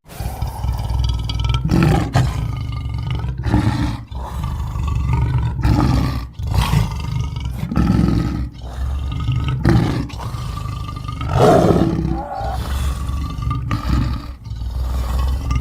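Sound-effect vocalisations of a Smilodon (sabre-toothed cat) creature: a run of loud, deep roars and growls, one after another with short breaks between them.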